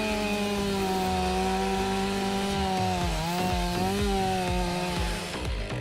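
Chainsaw running at high revs as it cuts a large tree. Its steady pitch dips briefly about three seconds in, recovers, then breaks off near the end.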